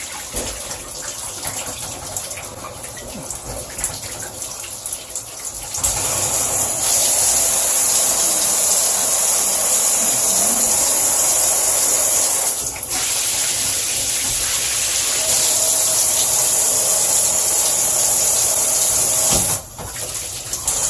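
Waterpik EcoFlow shower head spraying water with a steady hiss. About six seconds in the spray turns louder and brighter, and it breaks off briefly twice later on.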